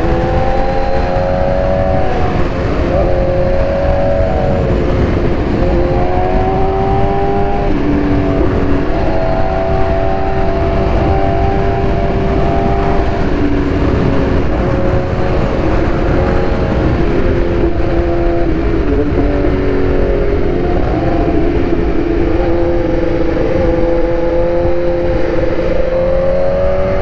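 BMW S1000RR inline-four engine running at a steady riding pace, heard from a camera mounted on the bike. Its pitch eases up and down a little with the throttle, over constant wind noise.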